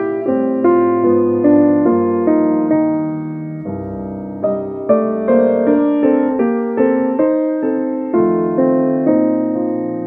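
Background piano music: a slow, gentle melody of struck notes that ring and fade, with a new note about every half second.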